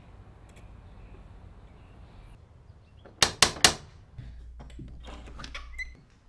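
Brass door knocker rapped three times in quick succession against a front door, about three seconds in.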